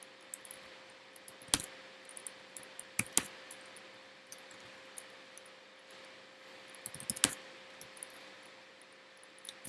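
Scattered clicks and taps from a computer keyboard, a few louder ones spaced seconds apart, over a faint steady hum.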